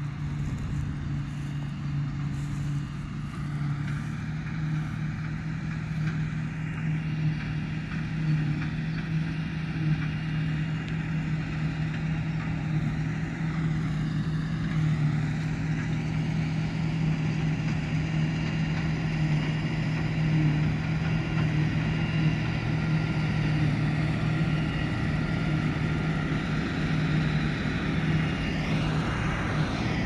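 Steady machine hum with a strong low tone over rough noise, plus a fainter high whine that dips and bends in pitch around the middle and again near the end.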